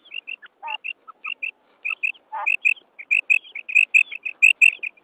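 Female quail (batair) calling: a rapid series of short, high chirping notes, mostly in pairs, coming faster and louder toward the end. This is the female's call that draws male quail, used as a lure in quail hunting.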